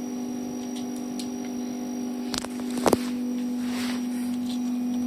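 A steady low hum, broken by two short clicks about half a second apart midway through.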